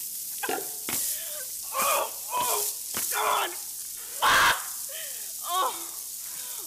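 A woman's wordless cries of pain: a run of sharp, breathy gasps and short whimpering cries that slide down in pitch, the loudest gasp about four seconds in, her reaction to being scalded.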